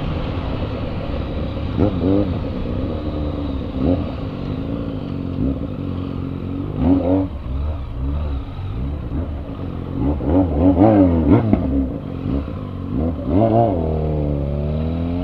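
Honda Tornado 250 single-cylinder four-stroke motorcycle engine heard from the rider's seat, revving up and easing off several times as it pulls away and changes gear in traffic.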